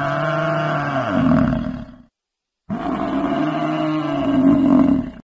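A large animal's deep, drawn-out roar, heard twice, each about two seconds long with a brief dead silence between; the second is nearly a copy of the first.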